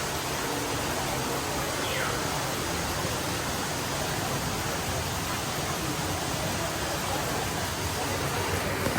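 Steady rushing hiss of falling water that sounds like rain, from a rainforest display's water feature, with faint voices behind it.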